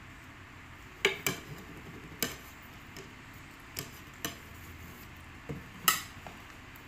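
Plates knocking and clattering on a tabletop as a toddler moves steamed buns and plates around: about seven sharp knocks, the loudest near the end.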